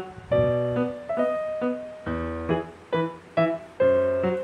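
Music: a keyboard melody of separate struck notes, each dying away, played at a lively pace.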